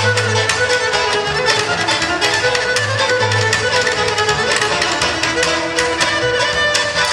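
Bulgarian folk trio playing a rachenitsa in 7/8 time: a bowed gadulka carries the melody over a strummed tambura and a double bass, with a quick, even pulse of string strokes.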